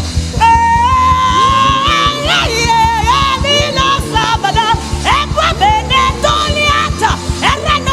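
A woman's voice in wordless singing. She holds a long wavering note starting about half a second in, then breaks into quick, sliding vocal runs over backing music with a steady low beat.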